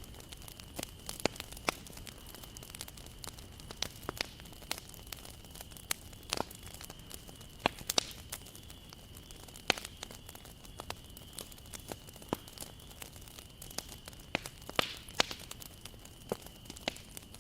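Wood campfire burning, crackling with sharp irregular pops over a low hiss. A faint steady high tone runs underneath.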